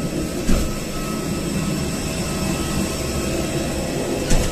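Steady rumble and hum of a parked airliner at the gate, heard from the boarding bridge, with a faint steady whine over it. Two brief knocks, about half a second in and near the end.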